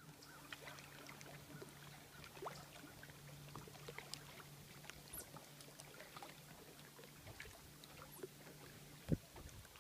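Faint lapping and small splashes of lake water around a small boat, over a low steady hum that stops about seven seconds in. A single sharp bump near the end.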